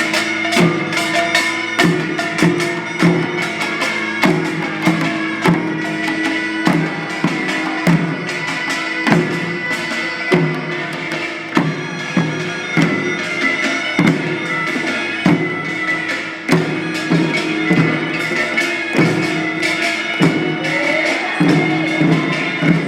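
Korean traditional field-song (deulsori) performance: drums and other percussion struck in a steady, dense beat under long held pitched tones.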